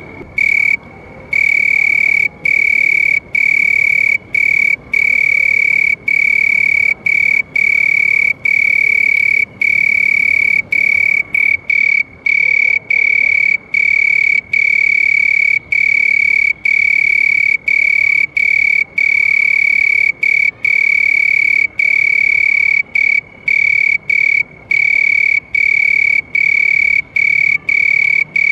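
Cricket trilling: a loud, steady, high-pitched buzz held in long stretches, broken by brief gaps every second or so.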